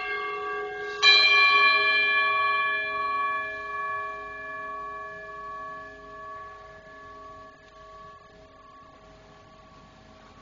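Consecration bell rung at the elevation of the host: still ringing from a stroke just before, it is struck again about a second in, and its several clear tones then die away slowly.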